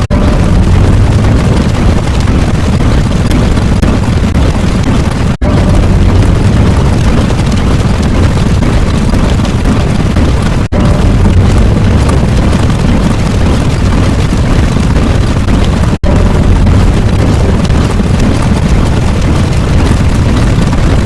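Loud, continuous deep rumbling sound effect, played as four back-to-back clips of about five seconds each, with a brief cut between them.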